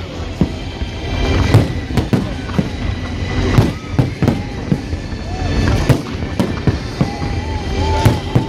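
Fireworks display going off in a rapid, irregular string of sharp bangs.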